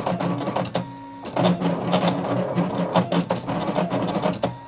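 Brother cutting machine's motors whirring in quick short runs as the carriage and blade cut lettering in heat-transfer vinyl, with a brief pause about a second in.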